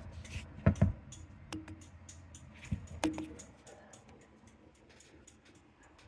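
A few sharp clicks and knocks as hands work on a refrigerated cooler's evaporator fan motor and its metal mount, the loudest pair just under a second in, fading to quiet handling noise after about three seconds.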